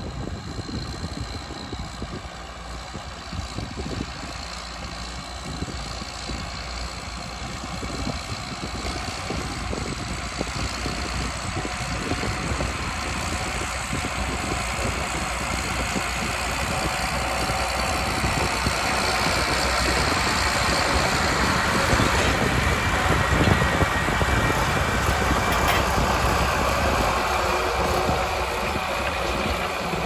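Straight-piped six-cylinder turbo diesel of a Ford 8240 tractor working under load while pulling a four-furrow plough, with a faint turbo whistle. It grows steadily louder as the tractor approaches, loudest a few seconds before the end.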